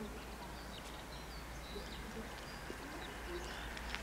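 Birds chirping in short, scattered calls over a low, steady background rumble.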